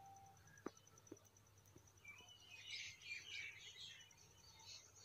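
Faint birds chirping outdoors, loudest about halfway through, over a steady high pulsing insect trill, with a couple of soft clicks about a second in.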